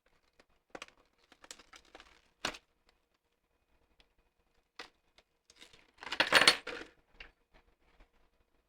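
Metal pieces of a heavy Batarang clicking and clinking together as they are handled and fitted: scattered light clicks, then a louder rattle of metal on metal about six seconds in.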